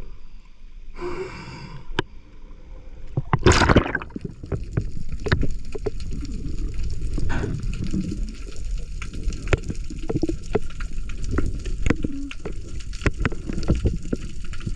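Water sounds as a spearfisher dives: a short rush about three and a half seconds in. After it comes a steady low underwater rumble with scattered sharp clicks.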